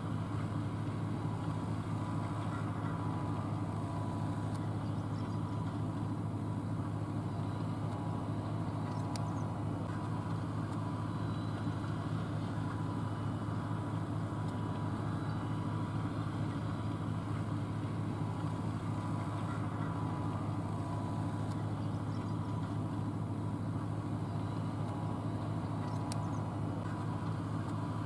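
A vehicle engine idling with a steady low hum that holds at one pitch, heard from inside a car's cabin.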